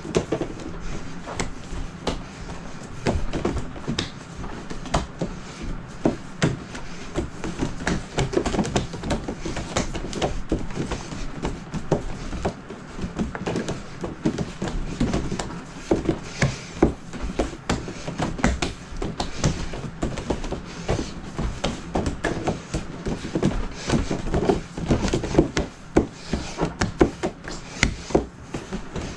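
Hands and forearms slapping, knocking and shoving against a Mook Jong wooden dummy's tape-wrapped arms and body: a continuous, irregular run of quick knocks and thuds.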